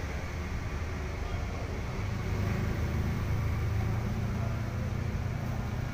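Low, steady rumble of road traffic on the flyover overhead, swelling for a few seconds in the middle as a vehicle passes.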